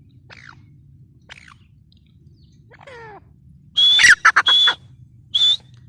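Birds calling: faint short falling chirps, a harsh falling call about three seconds in, then loud, shrill, harsh calls around four seconds in and once more near the end.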